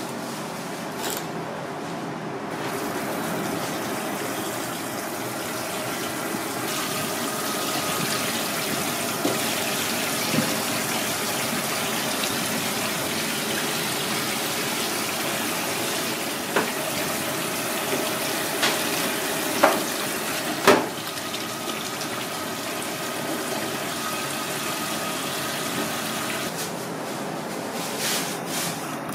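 Tap water running steadily, starting a couple of seconds in and stopping a few seconds before the end. A handful of sharp clicks and knocks sound around the middle as a knife works on the fish.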